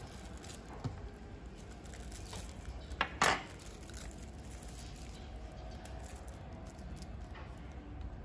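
Light clinks of dishes or utensils: a faint tap about a second in and a sharper double clink about three seconds in, over a low steady hum.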